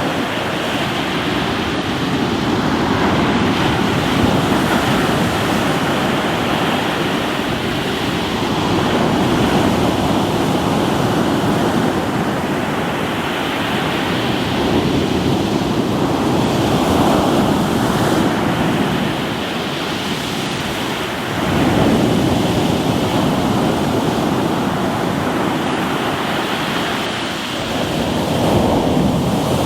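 Ocean surf washing on a rocky shore, a continuous rush of water with waves surging in, a sudden louder one about two-thirds of the way through and another near the end.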